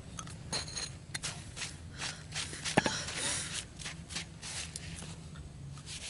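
Handling noise from setting a bamboo-and-scissors bird trap: a string of light clicks and scrapes as bamboo sticks and metal scissors are placed and adjusted on dry dirt, with one sharp click about three seconds in.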